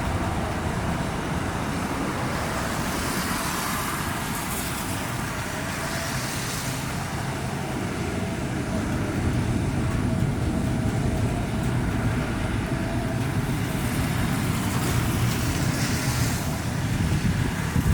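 Steady low rumble of engine noise with a faint hum through it, swelling a little now and then and slightly louder in the second half.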